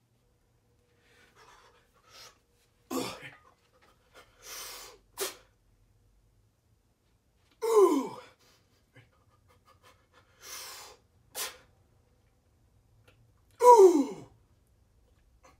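A man breathing hard and forcefully while straining to hold a heavy barbell overhead in one hand: three loud voiced exhalations that fall in pitch, about five seconds apart, with sharp breaths drawn in between.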